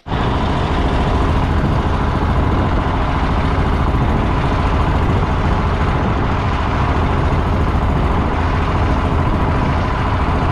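Small fishing boat's engine running steadily while under way to a new spot: a continuous low rumble with a faint constant hum on top.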